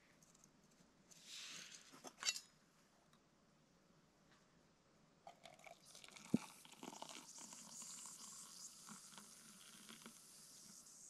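Hot water poured from a camp-stove pot into a steel camp mug: a sharp metal clink about six seconds in, then a steady splashing pour to the end. A few light metal clicks and a short hiss come a couple of seconds in, as the pot is handled.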